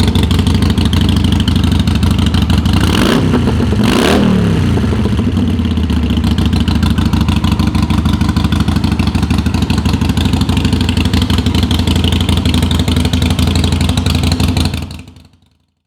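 Harley-Davidson Sportster Iron 883's air-cooled 883 cc V-twin running at idle. It is revved twice in quick succession about three seconds in, settles back to a steady idle, and fades out near the end.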